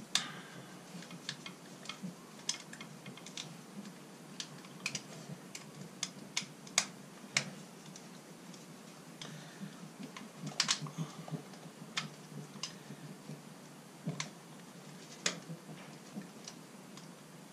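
Irregular small clicks and ticks of a screwdriver turning and seating the earth terminal screw inside a blue caravan hook-up plug, with the plastic plug body and cable being handled.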